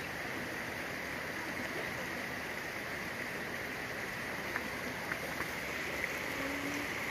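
Steady rush of running stream water, with a few faint clicks between about four and a half and six seconds in.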